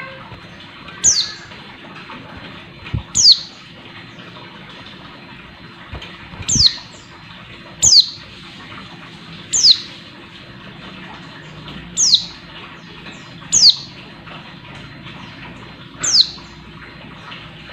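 Female white-eye (pleci) giving short, sharp, high calls that slur downward, eight in all, one every couple of seconds. Calls of this kind are used to stir male white-eyes into singing.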